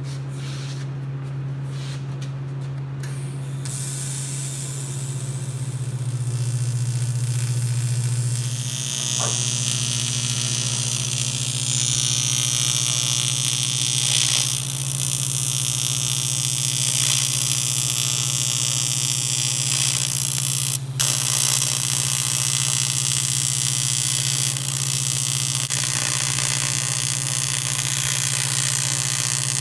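TIG welding arc hissing and buzzing steadily over a constant low hum; the arc is struck a few seconds in and breaks off for a moment about two-thirds of the way through.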